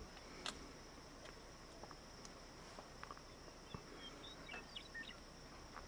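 Faint, steady high-pitched chirring of insects in the grass, with a few light clicks and some short high chirps about four to five seconds in.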